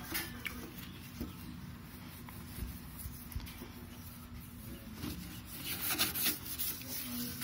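Fabric softener sheet rubbed across a motorcycle's chrome to wipe off dead love bugs: faint scattered rubbing, with a quick run of scrubbing strokes about five to six and a half seconds in.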